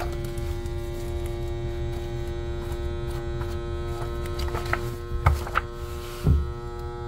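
Electric handheld jar vacuum sealer running on a mason jar lid, a steady motor hum as it pumps the air out of the jar. A few sharp clicks come near the end, then a single thump.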